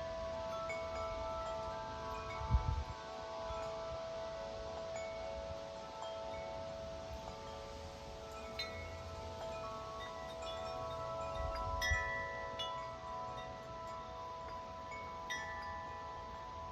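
Large 50-inch Corinthian Bells tubular wind chime ringing in strong gusty wind. Its tubes are struck again and again, and their long tones hang on and overlap. Two gusts thump on the microphone, about two and a half seconds in and again about twelve seconds in.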